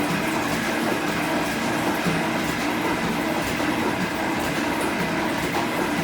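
G&E metal shaper running, its ram stroking back and forth as a shear tool cuts an aluminum bar.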